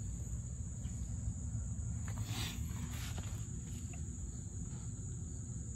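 Crickets trilling steadily in the background over a low, even rumble, with a faint brief scrape about two seconds in.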